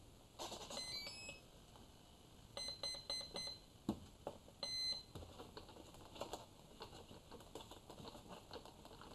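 A 40A brushless ESC sounds its power-up tones through the motor as the flight battery is connected: a quick rising run of notes, then a string of short beeps, then one longer beep, which means the ESC has powered up and is ready. Light clicks of handling follow as the battery is settled in the fuselage.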